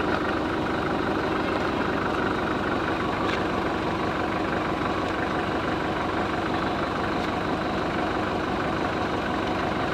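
Engine idling steadily, a continuous even hum with no change in speed, with a faint metallic click or two from hand tools.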